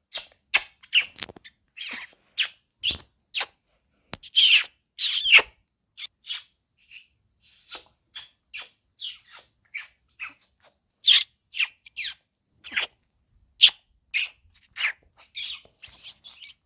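A child imitating lovebirds with the voice: a long, irregular series of short, sharp, high chirps, some louder squeaks among them.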